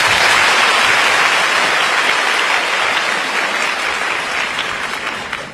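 Large audience applauding, a dense steady clapping that slowly tapers off and then cuts off abruptly at the end.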